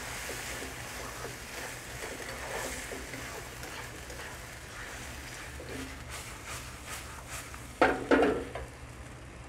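Sausage slices and onions in sauce sizzling in a nonstick wok over a gas flame while a slotted spatula stirs and scrapes them, with small clicks throughout. Two short, much louder clatters come about eight seconds in.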